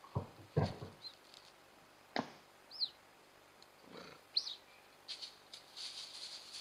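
Trail-camera recording in brush: a few knocks and rustles in the first second, a sharp click, then two short, high, arched chirps about a second and a half apart, with a faint high hiss rising near the end.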